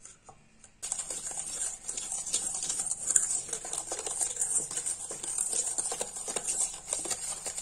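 Wire whisk beating egg and powdered sugar in a stainless steel bowl: a fast, steady scraping and clicking of the wires against the metal, starting about a second in.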